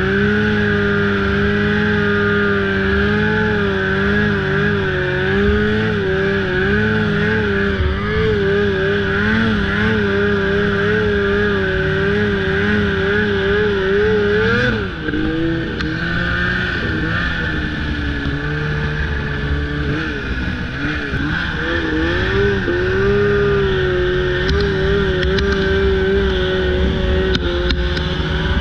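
Snowmobile engine running at speed, its pitch wavering with the throttle. About halfway through it drops off sharply, wanders lower for several seconds, then climbs back to a steady pitch.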